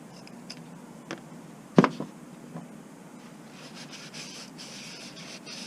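Hands working the plastic oil filter housing cap while taking its O-ring off: a few light clicks and one sharper knock about two seconds in, then scratchy rubbing from about halfway on.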